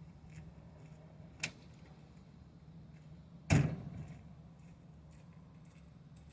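A faint click, then a single loud bang a little past halfway that rings out briefly, over a low steady hum.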